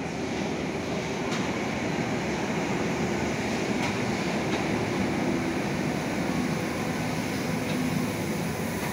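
Berlin U-Bahn train running into an underground station and past along the platform: a steady rumble that grows a little louder after the first second, with a few faint clicks from the wheels.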